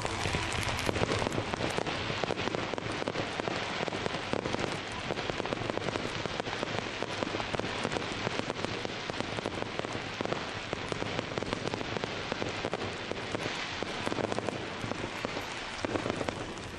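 Fireworks display: a continuous barrage of many small shells bursting and crackling, dense overlapping pops with no pause, a little louder in the first couple of seconds.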